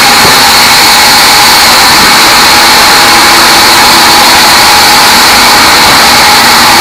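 Bandsaw mill sawing a teak log: a loud, steady machine noise with a constant high whine, unbroken throughout.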